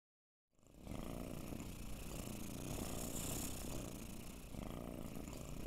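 Cat purring steadily, starting just under a second in after a brief silence.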